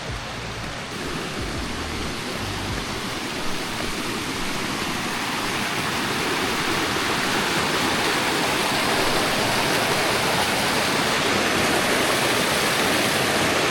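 Rushing water of a creek cascading over rocks, a steady noise that grows louder through the first half and then holds steady.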